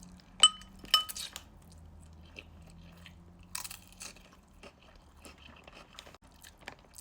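Crunchy chips and ramen being bitten and chewed close to the microphone, with crackles and one louder burst of crunching partway through. Two sharp, ringing clinks come near the start.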